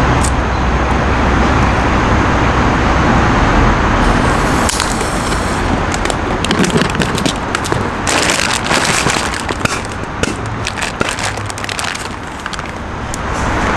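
String of Chinese firecrackers going off inside a plastic bucket stuffed with plastic play balls: a dense, continuous run of crackling bangs, thickest from about a third of the way in until shortly before the end.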